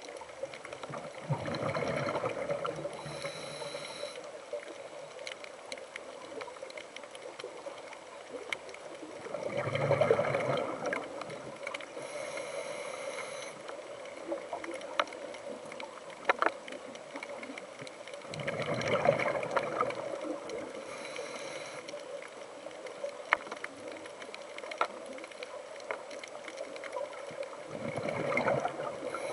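Scuba diver breathing underwater through a regulator. A gurgling rush of exhaled bubbles comes about every nine seconds, each followed by a shorter hiss of inhalation, with a few sharp clicks in between.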